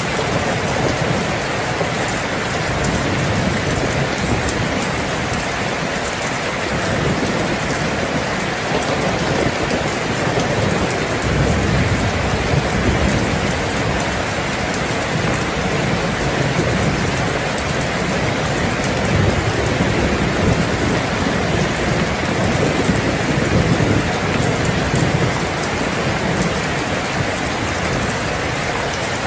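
Heavy rain falling steadily, with low rolls of thunder that swell and fade, most strongly about a third of the way in and through the second half.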